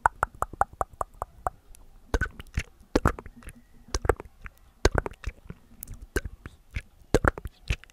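Close-up ASMR mouth sounds right at the microphone: wet tongue clicks and lip smacks. A quick run of about ten clicks comes in the first second and a half, followed by scattered smacks.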